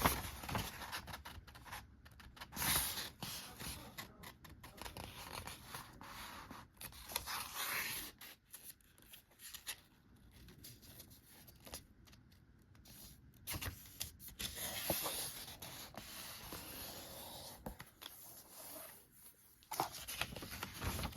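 A sheet of construction paper being folded in half by hand and creased: irregular rustling and crinkling, with short scrapes as the fold is pressed down.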